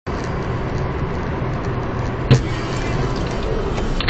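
Steady road and engine noise of a car driving at highway speed, with one sharp knock a little over two seconds in.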